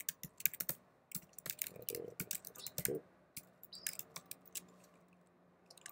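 Typing on a computer keyboard: quick runs of keystrokes that thin out near the end.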